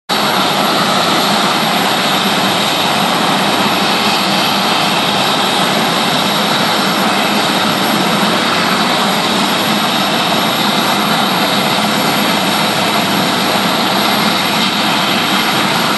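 Westland Sea King Mk 41 helicopter running on the ground, its twin turboshaft engines and rotor making a loud, steady noise that does not change.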